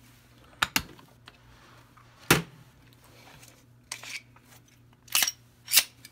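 Hard plastic Glock pistol case being opened: two quick latch clicks, then a louder knock of the lid about two seconds in. Then scraping and two sharp clacks as the cutaway Glock 19 is handled and lifted out of the foam.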